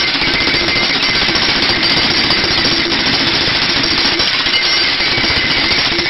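Two white domestic ducks dabbling in a plastic tub of water and chopped vegetables, their bills rapidly slurping and chattering through the water in a loud, steady rattle.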